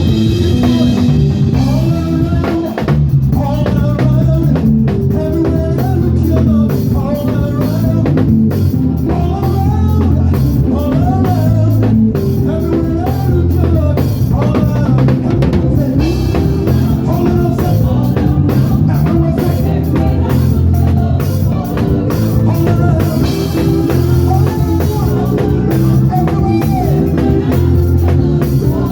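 Gospel praise-and-worship band playing a medley: a drum kit with snare and rimshots over a deep, heavy bass line, with a melodic part moving above.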